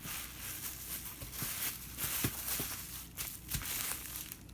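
Packaging being unwrapped by hand, crinkling and rustling throughout, with a few light knocks as it is handled.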